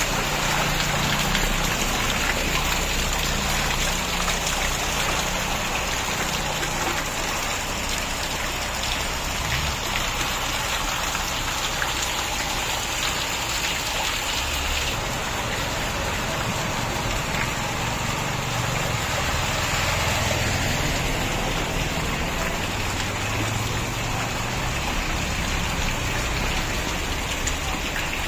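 Heavy rain falling steadily on a flooded street, a dense even hiss, with a low rumble underneath at times.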